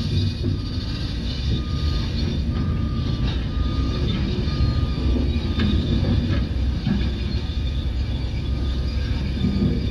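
Doosan DX225LCA excavator's diesel engine running steadily, a continuous low rumble, as the machine works its boom and arm. A faint high tone comes and goes about once a second over the rumble.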